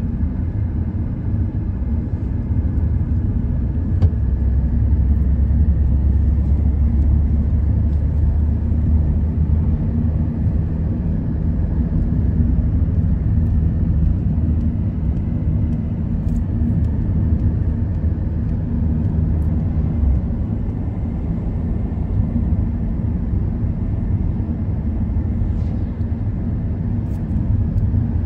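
Steady low rumble of a car driving at road speed, engine and tyre noise heard from inside the cabin, with a single light click about four seconds in.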